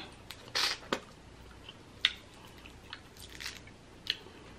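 Close-up eating sounds from a seafood boil: biting and chewing, with a handful of short, sharp wet clicks and crackles a second or so apart.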